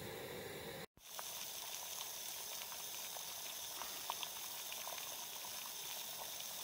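Water boiling in a small camping pot on a gas canister stove. A steady burner hiss, then after a short break about a second in, the bubbling and small pops of water at a rolling boil over the hiss of the flame.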